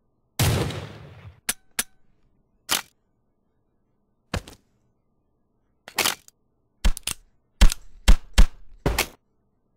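Fight sound effects: a gunshot ringing out and dying away about half a second in, then a few scattered sharp clicks and knocks, and a quick run of heavy blade strikes with a deep thud over the last three seconds.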